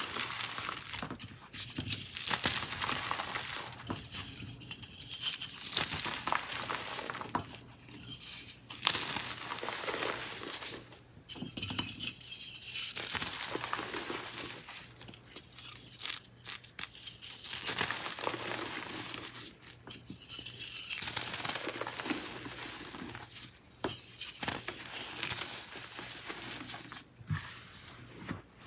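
Pressed gym chalk being crushed and crumbled by hand: dry, crunchy crackling in repeated squeezes lasting a second or two, with quieter moments between them.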